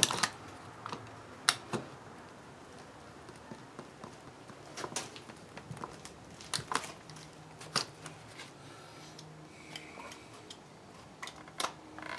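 Razor blade cutting and prying through thick plastic: scattered sharp clicks and snaps a second or more apart.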